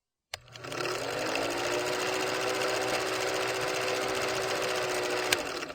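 A small motor-driven machine running with a fast, even rattle and a steady hum. It starts with a click just after the start and stops with a click near the end.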